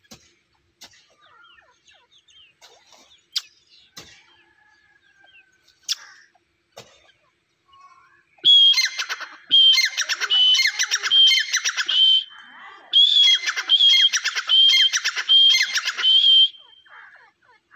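Grey francolin calling: two loud bouts of its repeated, high-pitched ringing phrase, starting about halfway through. Each bout is about five quick phrases, with a short pause between the bouts.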